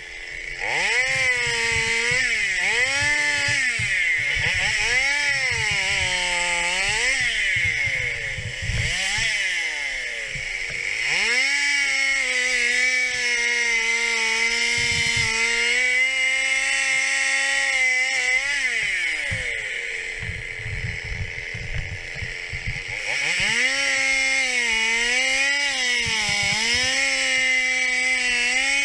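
Stihl 021 two-stroke chainsaw revved up and down several times, then held at high revs for several seconds while cutting into a fallen trunk. It drops back to a quieter idle, then revs again near the end.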